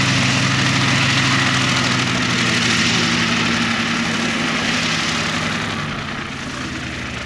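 Westland Lysander's nine-cylinder Bristol Mercury radial engine running at low taxiing power, a steady, even note with the propeller turning. It fades somewhat near the end as the aircraft moves past.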